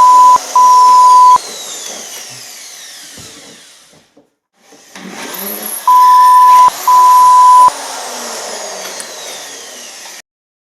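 Two pairs of loud, steady one-note censor bleeps, the second pair about six seconds in, laid over the whine of a power drill whose pitch falls as the motor winds down. There is a short break of quiet in between, and the sound cuts off abruptly near the end.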